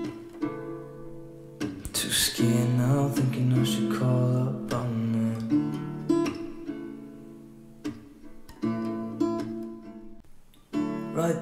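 Background music led by strummed acoustic guitar, its chords changing every second or so.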